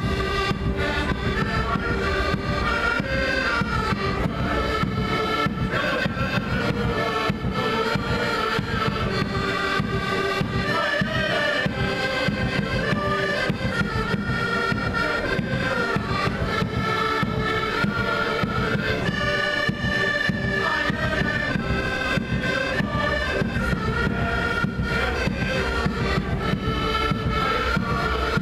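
Portuguese folk street band playing a continuous tune, accordions carrying the melody over a steady low beat.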